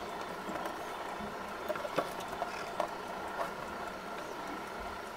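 Pencil drawing on paper: faint scratching with a few light ticks as the lead meets the sheet, over a steady background hum.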